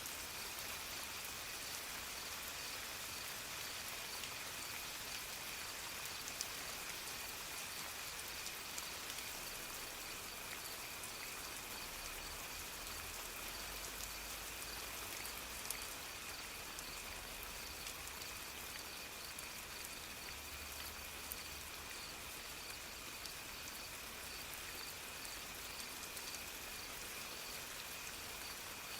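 Steady soft rain, an even hiss with scattered single drips ticking through it. A faint steady high tone runs under the rain, and a low rumble swells twice around the middle.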